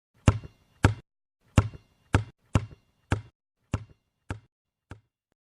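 A series of nine sharp knocks, roughly half a second apart at an uneven pace, each with a short softer rebound, growing fainter towards the end.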